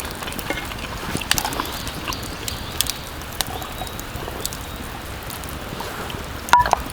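Scattered small crackles and ticks over a steady soft hiss at a rainy campsite, with a brief sharper click near the end.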